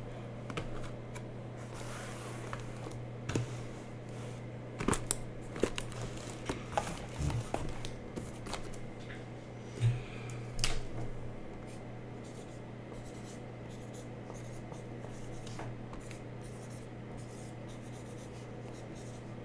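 Cardboard hobby boxes handled and set down, with scattered knocks and taps in the first part, then the quieter scratch of a felt-tip marker writing on the box lids. A steady low electrical hum runs underneath.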